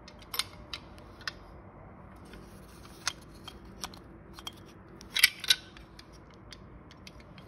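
Scattered light clicks and clacks of the hard plastic parts of a disassembled Audi 2.0 TFSI electric water pump being handled, with a louder pair of clacks about five seconds in.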